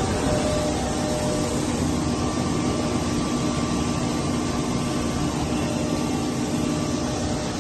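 Plastic bag recycling and pelletizing line running: steady machine noise with a faint low hum, unchanging throughout.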